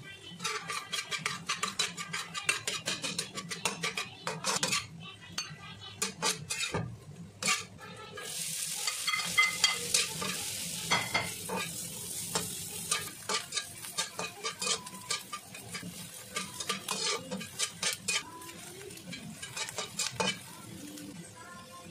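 Stainless slotted spatula scraping and clattering against a wok while stir-frying. From about eight seconds in, diced sausage sizzles in hot oil under the spatula's strokes.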